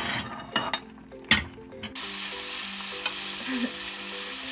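A few knocks of wooden chopsticks against a pot of boiling spaghetti, then, about two seconds in, bacon pieces sizzling steadily in a frying pan as they are stirred with chopsticks, rendering out their fat.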